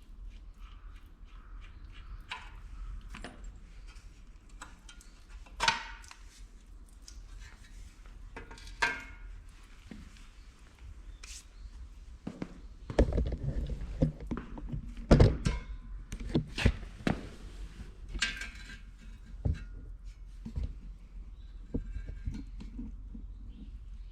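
Irregular knocks, clinks and thumps of hand tools and metal engine parts being handled during disassembly, with a cluster of heavier thumps in the middle. No engine is running.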